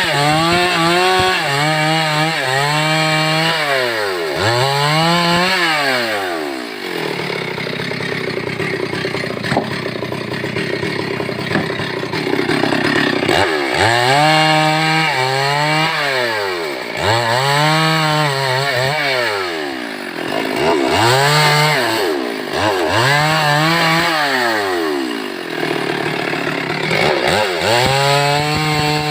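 Stihl MS 382 two-stroke chainsaw revved up and down in quick blips, about one a second. In the middle it runs for several seconds under a steadier, noisier load, as when cutting wood, then goes back to revving.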